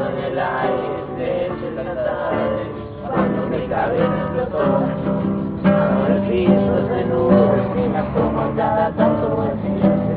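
Several voices singing together over a strummed acoustic guitar.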